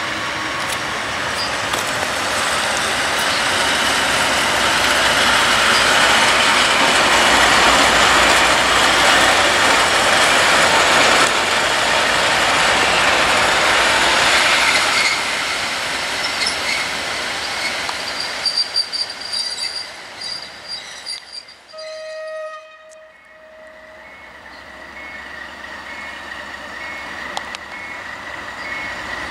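Diesel locomotive running past close by, its engine and wheels loudest about halfway through, then fading as it draws away. A few brief steady tones sound near the end.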